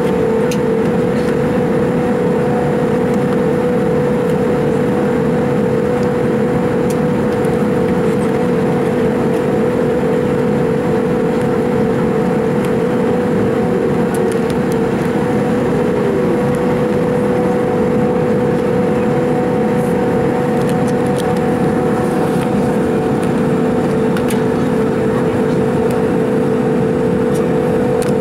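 Cabin noise inside an Airbus A310 airliner in descent: a steady engine drone with a constant low hum and the rush of air, unchanging throughout.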